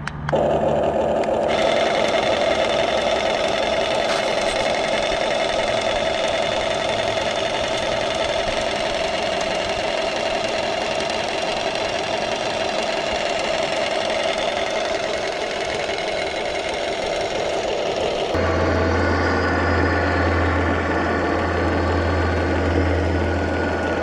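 Huina 1550 RC excavator running, with a steady engine-idle sound. About three-quarters of the way through, the sound shifts abruptly to a deeper steady hum.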